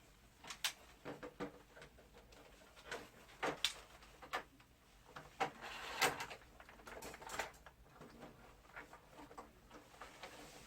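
Scattered clicks and knocks of plastic parts and screws being handled and fitted while a wall-mounted air conditioner is put back together.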